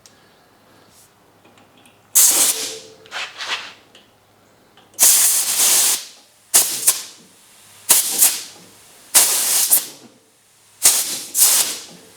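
Compressed air at about 135 psi hissing in a series of abrupt bursts as it is fed into a hydraulic lift cylinder, some bursts short and some about a second long. At that pressure the air is not enough to lift the ripper.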